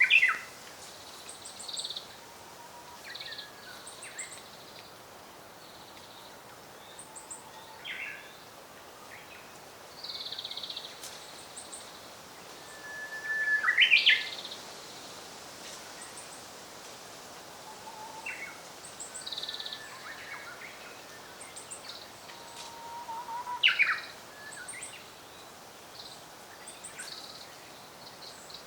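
Japanese robin singing: short loud song phrases a few seconds apart, loudest near the start, about halfway through and near 24 s, with fainter high chirps between them.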